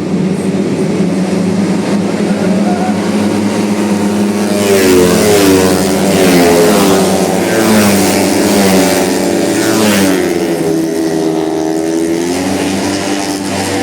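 Tuned automatic racing scooters running hard: a steady engine drone, then several engines revving from about a third of the way in, their pitches rising and falling and overlapping as the bikes go by.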